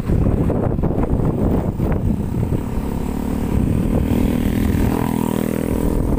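A vehicle's engine running while it travels, with rumbling road and wind noise and scattered knocks. From about two and a half seconds in, the engine's steady note comes through more clearly.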